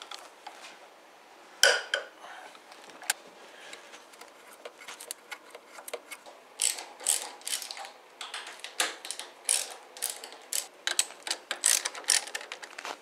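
Ratchet wrench clicking in quick runs as the engine mount bolts are turned out, with one louder sharp click about two seconds in.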